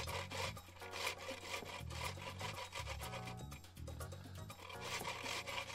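Whole-wheat crackers being grated on the coarse side of a stainless-steel box grater into a glass bowl: a quick run of dry rasping strokes. Background music with a bass line plays underneath.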